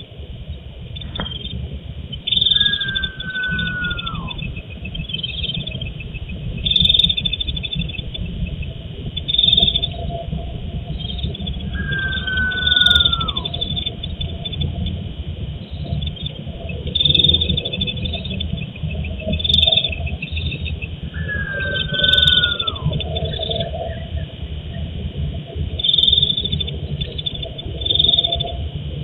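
Night chorus of frogs and insects, a steady pulsing trill with louder calls every two or three seconds. Three times, about ten seconds apart, a single whistled call slides downward. A steady low rumble runs underneath.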